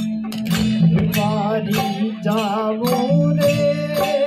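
Rajasthani folk bhajan music: a desi veena plucked over a steady drone, with harmonium and regular dholak beats about three a second, and a wavering melody line that settles into a long held note about three seconds in.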